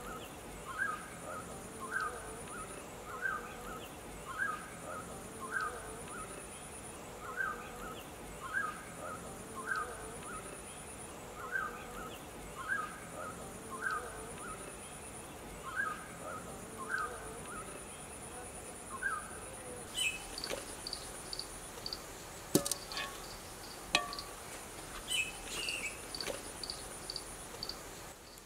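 Forest ambience: an insect's high, steady trill, broken every few seconds, under a short animal call repeated about once a second. The calls stop about two-thirds of the way through, and a few sharp clicks and knocks follow.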